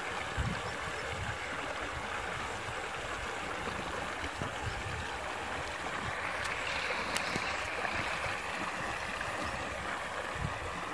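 Water flowing steadily along a concrete-lined irrigation channel, a continuous rushing where it tumbles over a small drop.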